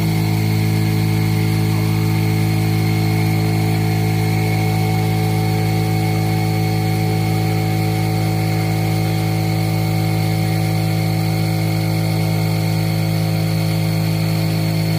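Spindle of a CNC stone router running at a steady speed, giving a loud, even hum made up of several steady tones.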